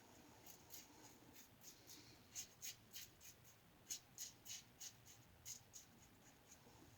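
Faint, short scraping strokes of a Firm Blade razor with half a Wizamet blade cutting through lathered stubble, coming irregularly and two or three a second at times.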